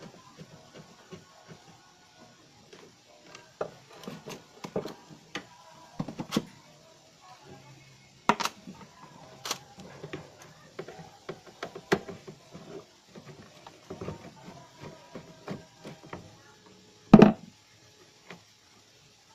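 CPU fan-heatsink being unclipped and worked loose from a motherboard: irregular clicks and knocks of its plastic mounting clips, with one loud knock near the end as the cooler comes free.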